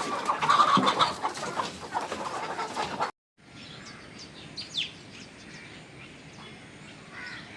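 A flock of chickens clucking, loud and dense for about three seconds. The sound then cuts out for a moment and comes back much quieter, with a few short high chirps.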